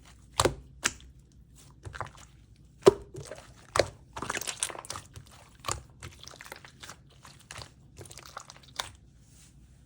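Slime being squeezed and poked by hand, giving irregular sharp clicking pops and crackles, with a longer crackly stretch about four seconds in.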